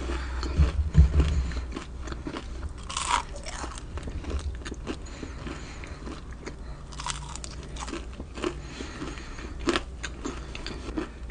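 Homemade churros being bitten and chewed close to the microphone: crisp crunching with many small crackles, and a few louder crunches spread through. There are some low thumps about a second in.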